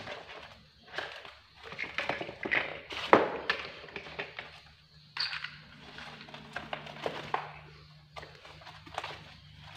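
Kittens' paws tapping and scrabbling on a styrofoam box and knocking against plastic building blocks: irregular light clicks and knocks, with the loudest knock about three seconds in.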